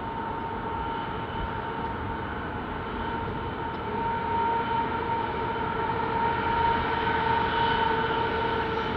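Diesel-electric locomotives hauling a coal train approach, running with a steady high-pitched whine that grows louder as they near.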